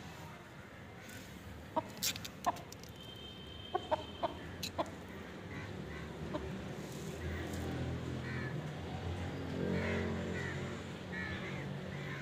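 Aseel chickens clucking, building in the second half into a long, low-pitched run of clucks. A few short, sharp clicks fall in the first half.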